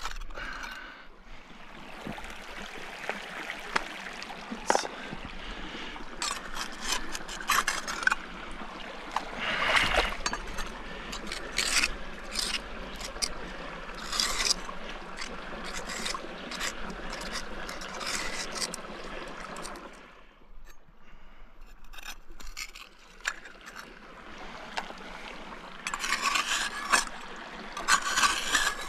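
Small metal crevicing tool and hand trowel scraping gravel and clay out of a wet bedrock crevice: irregular scrapes and clinks of metal on rock, easing off for a few seconds about two-thirds of the way through before starting again.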